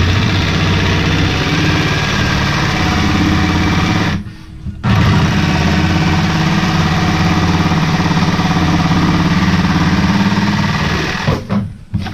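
Power saw cutting out a backing plate from quarter-inch StarBoard plastic sheet, running steadily. It stops briefly about four seconds in, starts again, and winds down near the end.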